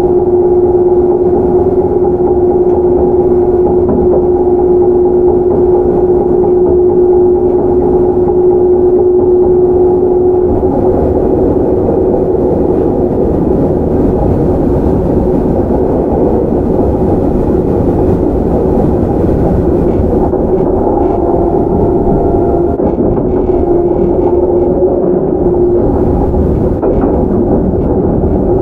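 JR Central 311 series electric train (KuMoHa 311-14) running at a steady speed: a flat whine from its MT61 traction motors over a dense rumble of wheels on track. The whine is strong for about the first ten seconds, then weakens.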